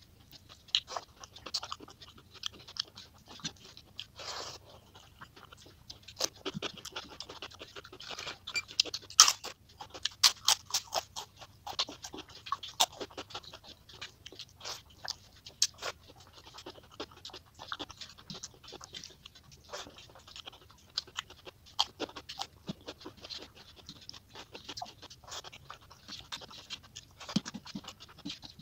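Eating mouth sounds sped up to three times speed: wet chewing and lip smacks with irregular short clicks, along with fingers mixing rice on a steel plate. The smacks are busiest about nine to eleven seconds in.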